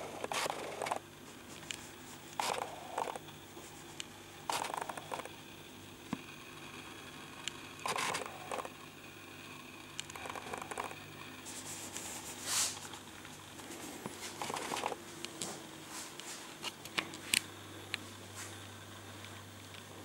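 Irregular short rustles, scrapes and clicks, about a dozen spread unevenly, over a faint steady low hum.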